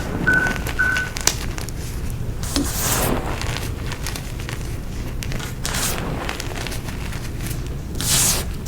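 Gym chalk being crushed by hand, a few separate crunchy, crumbling squeezes. Three short identical beeps sound in the first second, over a steady low rumble.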